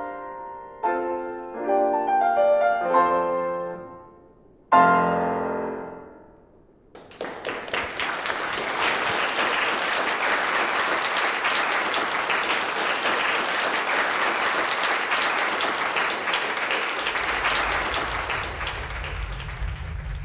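Grand piano playing chords, ending on a loud final chord about five seconds in that rings out and dies away. Applause then starts and runs steadily, with a low rumble coming in near the end.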